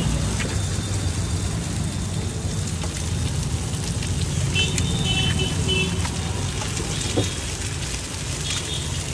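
Eggs and sliced onions sizzling on a large flat iron griddle (tawa) over a steady low rumble of street traffic, with a sharp click about seven seconds in as an egg shell is cracked.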